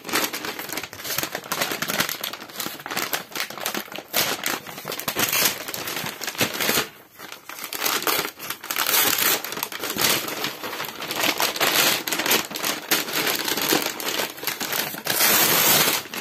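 A brown kraft-paper envelope being torn open and crumpled by hand: a continuous noisy crackling and rustling of paper, with a brief lull about seven seconds in.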